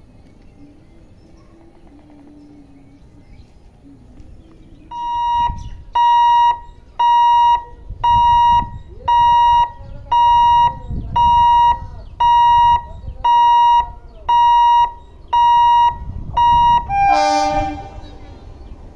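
Level-crossing electronic warning beeper sounding a steady high beep about once a second, about a dozen times, as a train approaches. Near the end a short train horn blast sounds from the approaching EMU.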